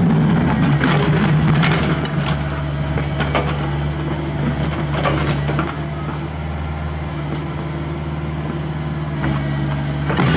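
CAT 305.5E2 mini excavator digging: its diesel engine running steadily under hydraulic load, with scrapes and knocks as the steel bucket cuts into rocky dirt. The engine is loudest in the first couple of seconds, then settles lower.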